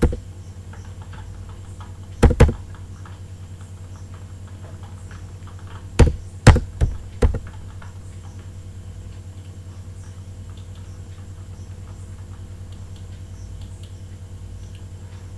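Computer mouse clicking while beams are selected in a program: a quick double click, then four more clicks a few seconds later, over a steady low electrical hum.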